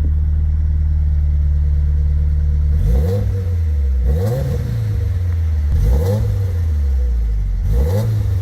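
Subaru Impreza WRX STI's turbocharged flat-four idling steadily, then revved in four quick blips from about three seconds in, each a sharp rise in pitch that falls back to idle.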